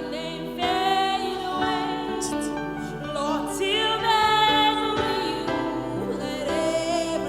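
Worship singing with a sustained, melismatic voice over instrumental accompaniment.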